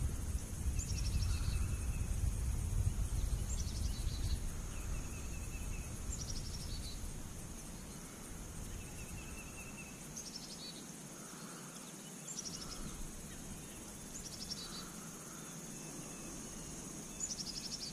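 Outdoor ambience of a steady, high-pitched insect drone, with a short descending bird call repeated every two to three seconds. A low rumble is present at first and fades away about halfway through.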